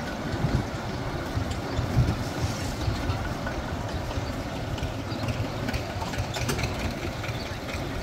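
Small motorbike engine running steadily while riding, with wind rumble on the microphone.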